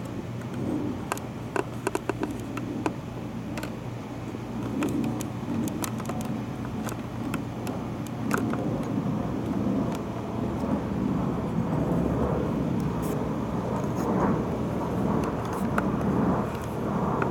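Gusty thunderstorm outflow wind blowing across the microphone, growing stronger about halfway through. A few sharp clicks come in the first few seconds and once more midway.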